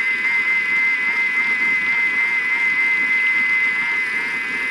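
Thermomix motor running steadily with a high whine, whipping mayonnaise as oil drips in slowly through the lid to build the emulsion.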